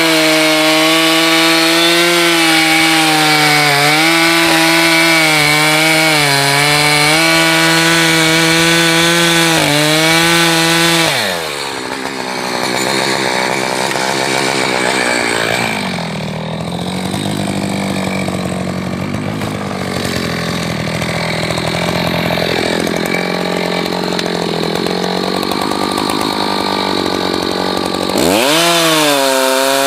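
Echo two-stroke chainsaw running at high revs, dipping slightly now and then. About eleven seconds in its pitch drops sharply and it runs slower and rougher. Near the end it revs back up.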